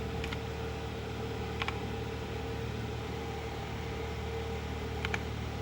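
A steady low hum with a few separate short clicks: mechanical keyboard keys pressed one at a time to test the repaired keys. One click comes just after the start, one about a second and a half in, and a quick pair near the end.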